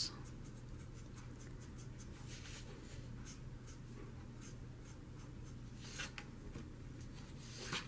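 Spectrum Noir alcohol marker stroking across coloring-book paper: faint, repeated scratchy strokes. Louder rubs come about six seconds in and again near the end as the sheet is slid round on the table.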